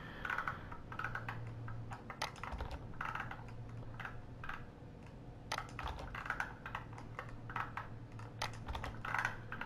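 Computer keyboard keystrokes and clicks, faint and irregular, as spreadsheet rows are copied and pasted with Ctrl+C and Ctrl+V shortcuts, over a faint low hum.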